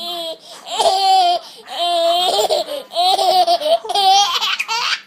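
A toddler laughing hard in about four long, high-pitched bouts of belly laughter with short breaths between them.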